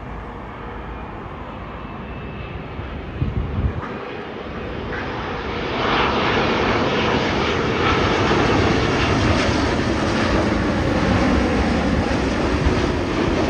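Jet airliner on final approach passing close overhead: engine noise swelling from about four seconds in, then loud and steady. Wind rumbles on the microphone throughout, with one gust about three seconds in.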